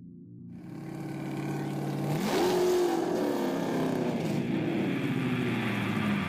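A car engine running and fading in, then revving up quickly about two seconds in, with the pitch falling slowly afterwards.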